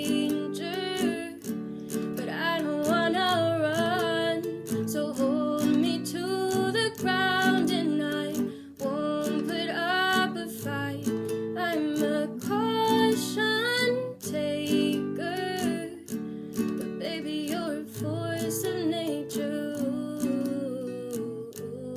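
Music: an acoustic guitar strumming chords, with a wavering melody line over it.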